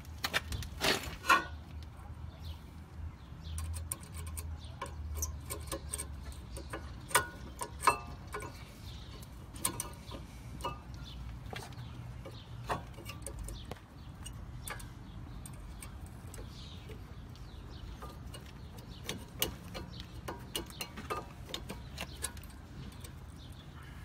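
Scattered metallic clicks and taps of a new brake pad being seated into the caliper bracket's pad clips on a 2003 Honda Civic front brake, the sharpest about a second in and again near eight seconds. A low steady rumble runs underneath.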